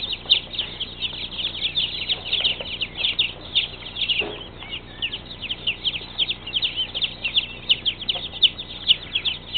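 A large crowd of day-old chicks peeping: many short, high cheeps overlapping without pause into one continuous chorus.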